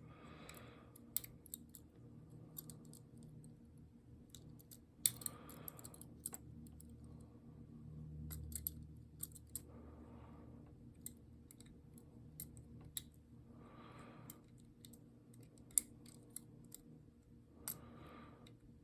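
Faint, irregular metallic clicks and ticks of a pick wire and tension tool working the levers of an older ERA Insurance five-lever padlock.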